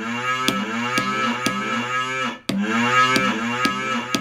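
Pads of a Yamaha DD-65 digital drum kit struck with a drumstick on sound-effects kit 49, each hit setting off a sampled pitched sound effect with a bending pitch. The hits come about two a second, with a short break about two seconds in.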